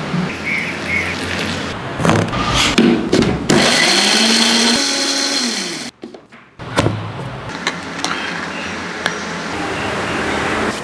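Electric mixer grinder with a small steel jar grinding spices, garlic and curry leaves into masala paste. A few sharp clicks and knocks come first. The motor then runs steadily and drops in pitch as it spins down about six seconds in.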